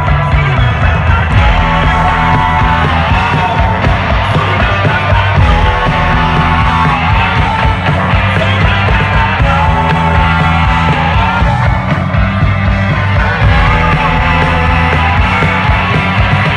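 Live band playing a rock song loud, with heavy bass and a voice singing over it.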